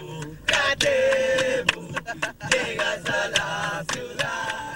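A group of young men singing together in chorus, voices bending and holding notes, over a regular sharp beat.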